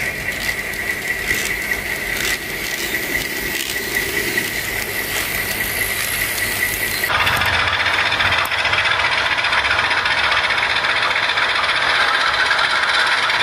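Model trains running on their track: a steady high motor whine with scattered wheel clicks. About seven seconds in it cuts suddenly to a louder, denser running noise from a model diesel locomotive.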